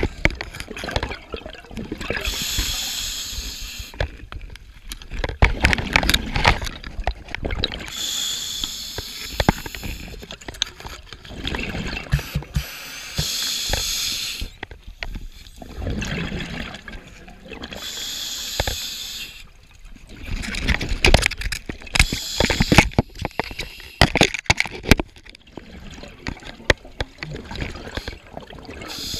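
A scuba diver breathing through an open-circuit regulator underwater. A hissing inhale comes every four to five seconds, and each is followed by the low bubbling rumble of the exhaled air.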